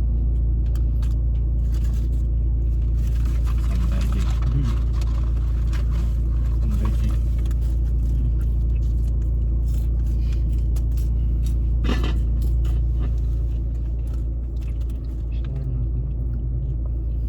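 Steady low rumble of a car's engine heard from inside the cabin, under scattered small clicks and rustles of eating and handling food.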